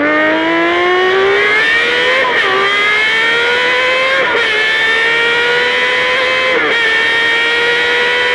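Honda CBX 1050's inline-six engine accelerating hard under a rider. Its pitch climbs steadily and drops sharply at three upshifts, about two, four and nearly seven seconds in.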